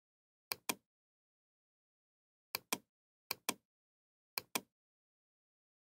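Computer mouse button clicking: four quick pairs of sharp clicks, with silence between the pairs.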